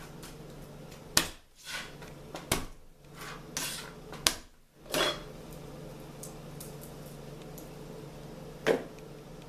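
Garlic cloves being cracked and smashed: about five sharp knocks, the last a few seconds after the others, with softer scraping sounds between them, over a steady low hum.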